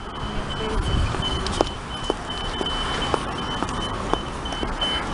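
Audible pedestrian crossing signal beeping, a short high-pitched tone repeating about twice a second, over the steady rumble of city traffic.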